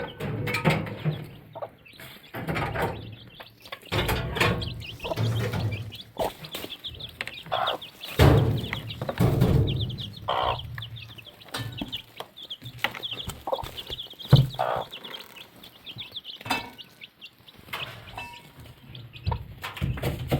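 Domestic chickens clucking, with irregular knocks and bumps scattered through.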